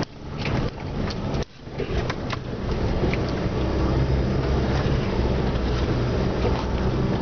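Four-wheel drive's engine pulling hard up a steep, rutted dirt track, heard from inside the cab, with knocks and rattles as the vehicle jolts over the bumps. The engine sound dips twice in the first couple of seconds, then rises and holds steady under load.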